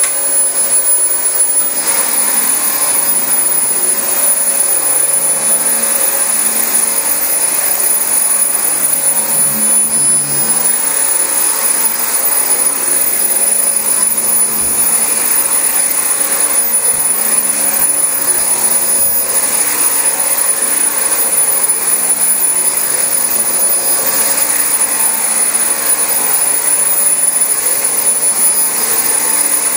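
Dyson DC25 upright vacuum cleaner running steadily over thick carpet: a rush of air with a steady high motor whine. Its bin is filled past the max line.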